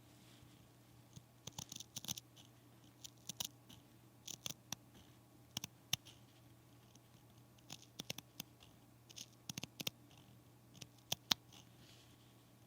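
Scissors snipping, in short runs of quick sharp snips with brief pauses between them.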